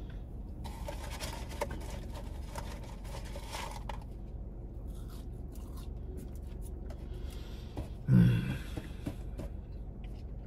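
Quiet handling noises, light scraping, rustling and small clicks, over a steady low hum, with one short voiced sound, a hum or grunt, about eight seconds in.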